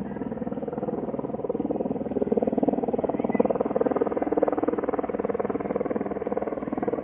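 Helicopter flying overhead, its rotor beating in a steady fast pulse, a little louder from about two seconds in.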